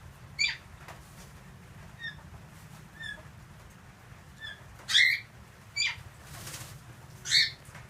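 Pet cockatoos giving short, sharp squawks, four louder ones scattered through, with softer single chirps between them and a brief rustle of feathers about six and a half seconds in.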